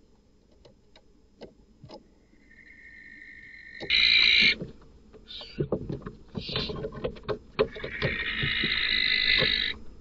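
Barn owls hissing and screeching: a short loud hiss-screech about four seconds in and a longer one near the end, with knocks and scuffling against the wooden nest box in between.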